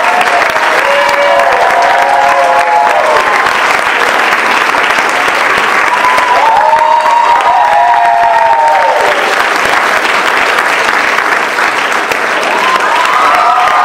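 Theatre audience and cast applauding steadily, with whoops and cheers rising over the clapping several times.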